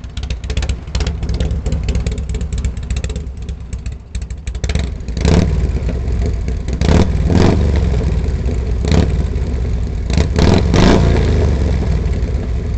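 Harley-Davidson shovelhead V-twin running loud through unbaffled 3-inch Khrome Werks straight pipes. It idles with an uneven, loping beat, then from about five seconds in is blipped about six times, each blip rising sharply and falling back.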